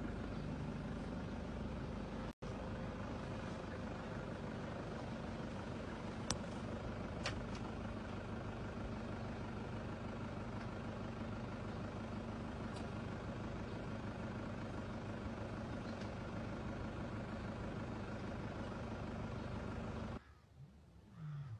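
Steady low mechanical drone and rumble, like an engine running at idle, with a few faint clicks; it cuts off suddenly near the end.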